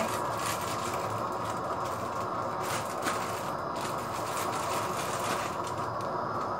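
Steady rushing kitchen noise while food is being cooked, with a few light clicks and scrapes of utensils about two to three seconds in.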